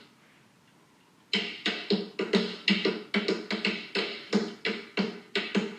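Quick, even tap-dance taps with a ringing edge, about three to four a second, starting after a brief pause about a second in.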